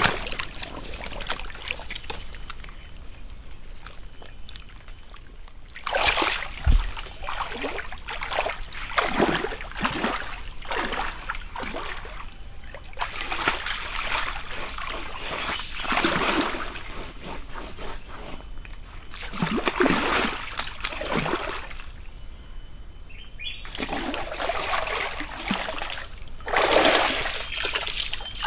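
Water splashing and sloshing in irregular bursts as a person moves about in a shallow river, over a steady high-pitched whine.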